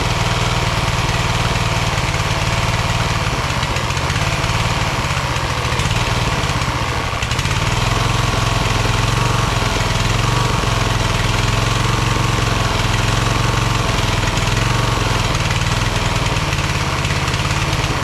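Rebuilt Kohler Command engine on a Craftsman LT1000 lawn tractor running steadily, having just started on a freshly fitted battery.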